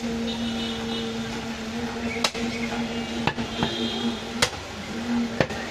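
A cleaver chopping mutton on a wooden log block: a handful of sharp, irregularly spaced strikes, the loudest about two and four and a half seconds in, over a steady low hum.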